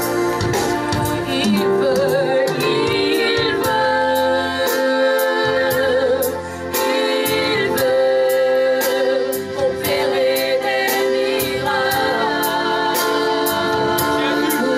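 Gospel music: voices singing over keyboard chords with a steady beat.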